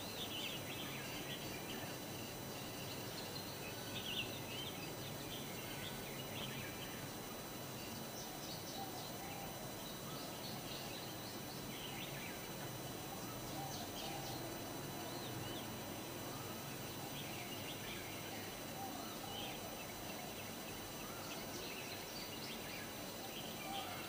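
Steady city background noise with scattered short, high chirps and twitters from small birds.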